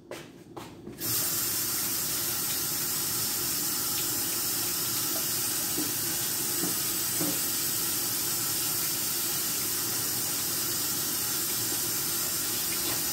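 Kitchen sink faucet running in a steady stream while hands are washed under it, the water coming on about a second in.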